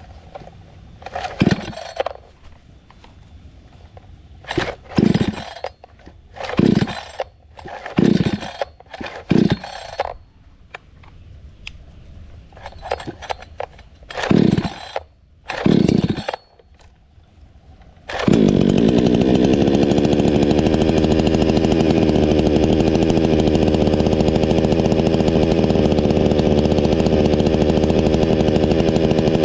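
Yasuka YSK 6800 two-stroke chainsaw being pull-started. About nine short bursts where the engine coughs briefly and dies away, then it catches about 18 seconds in and runs steadily.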